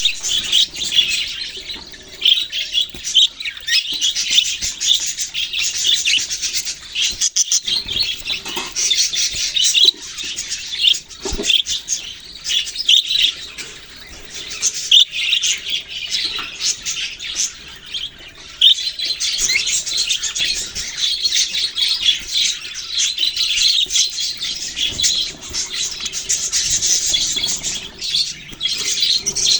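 A flock of budgerigars chirping and chattering continuously, many rapid high chirps overlapping.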